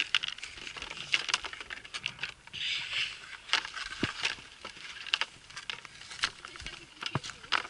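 Irregular clicks and knocks of ski jumping skis and gear being handled at close range, with a short scraping rush about three seconds in.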